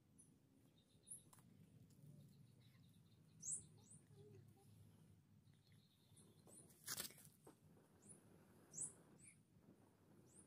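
Near silence with faint, scattered short high bird chirps, and one brief knock about seven seconds in.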